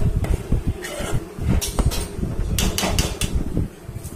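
Uneven low rumbling of a phone being handled and moved around, with a few sharp knocks and clinks in the middle, about three close together near three seconds in.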